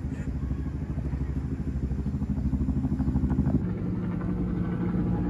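A motor vehicle's engine running steadily with a low, rapid throb; its tone shifts slightly about three and a half seconds in.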